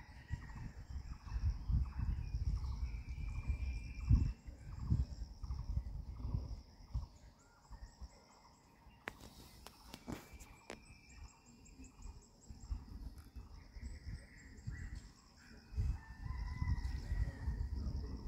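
Wind gusting over the microphone, with a bird calling several times and a steady high chirring throughout. The wind eases in the middle, where a few sharp clicks sound.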